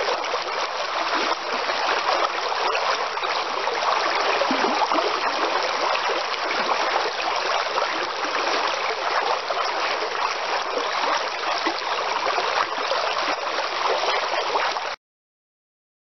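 A small mountain river flowing over stones: a steady rush of running water that cuts off suddenly near the end.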